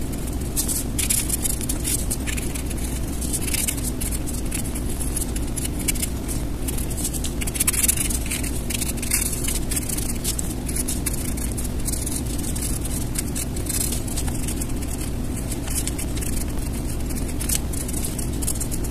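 Pencil scratching across paper in many short, quick strokes, over a steady low background hum.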